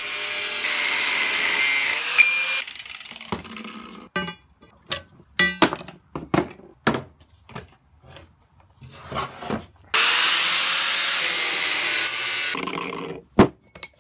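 Angle grinder with an abrasive cut-off wheel cutting through steel bar, a loud steady hiss with a whine that drops in pitch, for about two and a half seconds before winding down. A run of sharp knocks and clicks follows, then a second cut of about two and a half seconds starting about ten seconds in, and a single sharp knock near the end.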